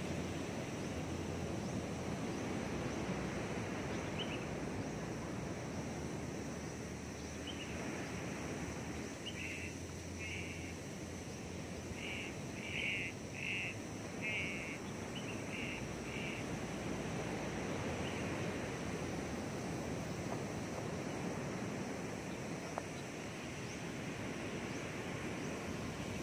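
Outdoor ambience: a steady rushing background noise, with an animal giving a run of short high calls, about two a second, in the middle.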